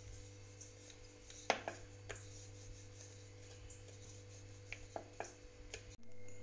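Wooden rolling pin rolling out a small ball of maida dough on a wooden board, with scattered light knocks of the pin on the board, the sharpest about one and a half seconds in. A steady low hum runs underneath.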